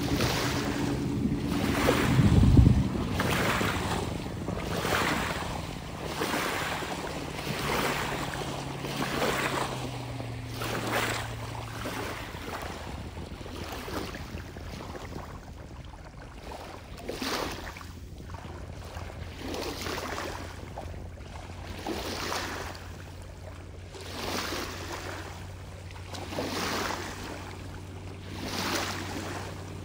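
Small waves washing against the shore every couple of seconds. A speedboat's supercharged big-block Mercury engine drones, loud at first and fading within a few seconds to a low, steady distant hum.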